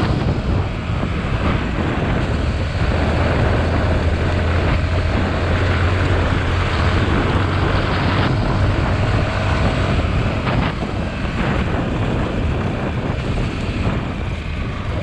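Yamaha WR155R's single-cylinder four-stroke engine running steadily under way on an off-road ride, with wind noise on the microphone.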